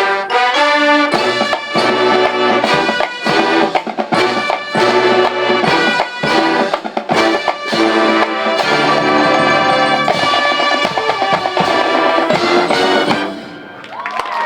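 High school marching band playing a loud passage, the brass carrying the tune over drums and percussion, breaking off about a second before the end.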